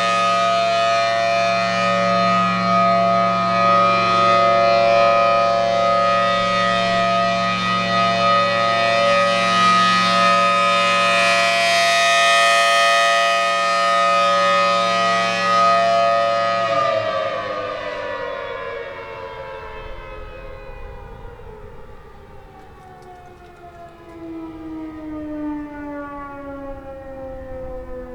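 Federal Signal Thunderbolt 1000T siren sounding its steady full-alert tone, extremely loud. About 17 seconds in the tone cuts out and the siren winds down, its pitch falling slowly and evenly as it fades.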